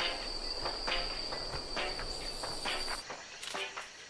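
Rainforest ambience: a steady high-pitched insect drone, with short calls repeating about once a second. The drone stops suddenly about three seconds in.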